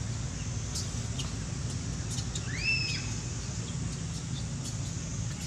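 A young macaque gives one high, thin squealing call about two seconds in, rising quickly, held level and then dropping off, over a steady low rumble.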